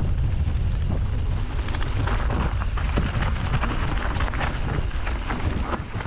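Wind buffeting the action-camera microphone as a steady low rumble, with the Canyon Strive enduro mountain bike clattering over rough trail: many short knocks and rattles from tyres, chain and frame on a fast descent.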